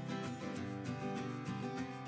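Background music with a strummed acoustic guitar keeping a steady rhythm.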